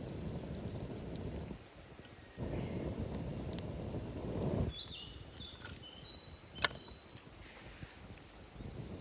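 Outdoor sound: two spells of low rumbling noise, then a few short high chirps about five seconds in, with a sharp click just after.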